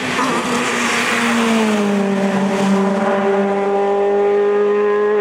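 Citroën C2 S1600 rally car's 1.6-litre four-cylinder engine racing past close by. Its note drops in pitch as the car goes by in the first couple of seconds, then settles into a steady, slowly rising drone as it pulls away up the road.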